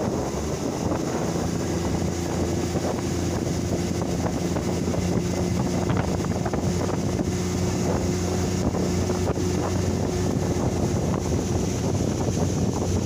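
Boat motor running at a steady pitch, under a rush of wind noise on the microphone.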